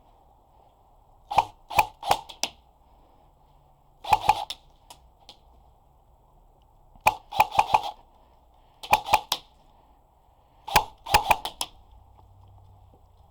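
Airsoft guns firing in short bursts of sharp snapping cracks, five groups of two to five shots a few seconds apart.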